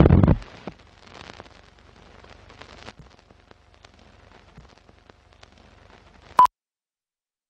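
Film-leader countdown sound effects: a loud low thump at the start, then a faint crackle of scattered clicks like old film running, ending in one short, high countdown beep near the end.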